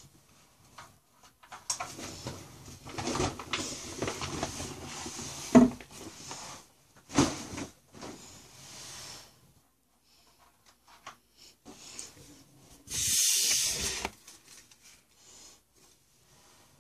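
Pokémon trading cards being handled: cards rubbing and sliding against each other with a couple of light clicks, and a louder rustle about 13 seconds in.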